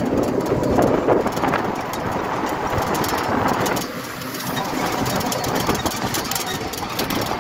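Vehicle engine running with road noise, heard from on board while the vehicle is moving.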